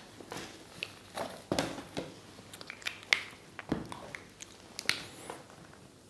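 A thick textbook being handled and set down, with a run of irregular taps, clicks and paper rustles.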